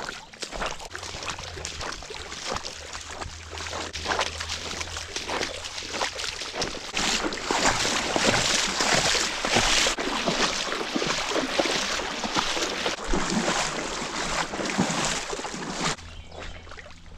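Water splashing and sloshing with many small irregular splashes, busiest in the middle and dropping suddenly to a quieter level near the end.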